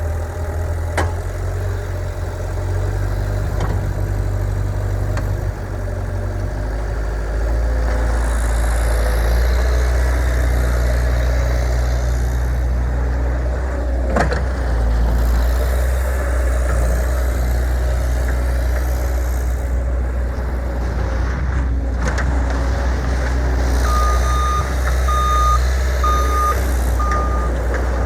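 Cat 262C2 skid steer loader's diesel engine running, picking up speed and getting louder about a quarter of the way in. Near the end its back-up alarm beeps four times as the loader reverses.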